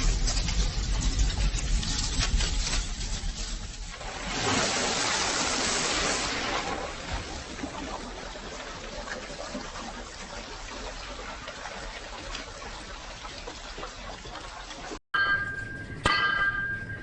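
Hot steel quenched in water: a loud hiss about four seconds in that settles into a steady, quieter seething. Near the end, after a brief break, two hammer blows on steel ring out with a bell-like tone.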